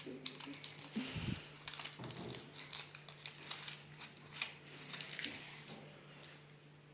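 Ferrero Rocher chocolate wrapping being handled and opened: irregular crinkling and crackling, dying away near the end.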